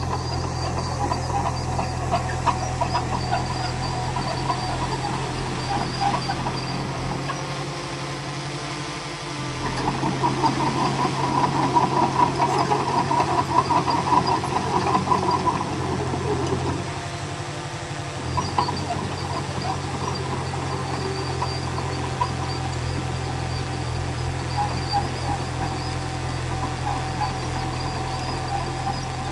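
Komatsu D20A bulldozer's diesel engine running steadily while it works. The engine grows louder for several seconds in the middle, as if under load, then settles back.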